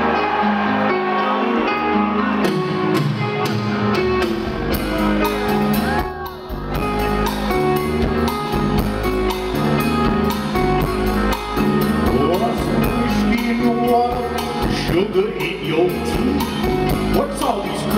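Rock band playing live, heard from the audience: sustained keyboard and bass notes with a drum kit and hi-hat keeping time from a few seconds in.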